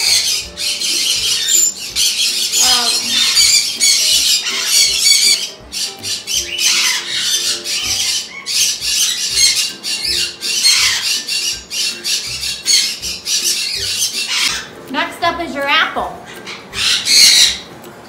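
Catalina macaw squawking and chattering on and off, with a few louder calls that bend in pitch about fifteen seconds in.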